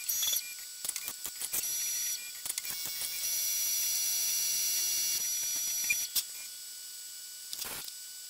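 Tormach 1100MX CNC mill machining a titanium handle slab: a high-pitched spindle whine with scattered sharp clicks and ticks, going quieter about six seconds in.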